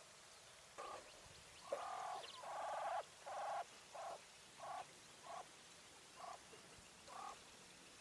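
English White Coturnix quail hen calling: a string of about nine pitched calls starting about a second in. The second and third calls are longer and the loudest, then come shorter calls spaced half a second to a second apart.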